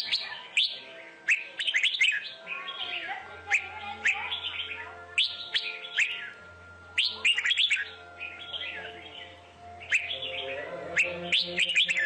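Red-whiskered bulbuls singing in repeated bouts of sharp, quick chirps and short whistled phrases, one bout every second or two. It is the competitive song of a decoy bulbul used to lure wild bulbuls.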